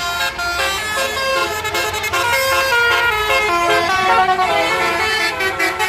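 Tour bus's basuri telolet horn, a multi-tone musical horn, playing a tune in quick changing notes.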